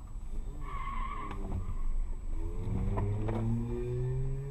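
A car engine accelerating, its pitch rising slowly through the second half, after a brief wavering high squeal about a second in and a few light knocks.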